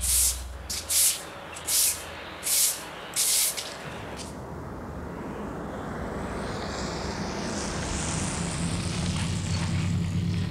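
Five footsteps in wet snow and slush at walking pace. Then a car approaches on a wet, slushy road, its engine rumble and tyre hiss slowly growing louder.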